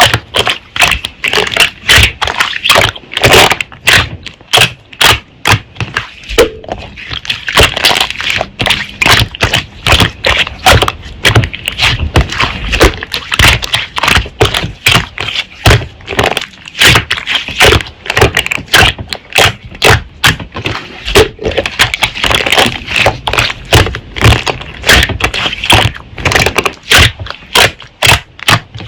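Slime being squished and kneaded by hand, with a dense stream of sharp, irregular pops and crackles.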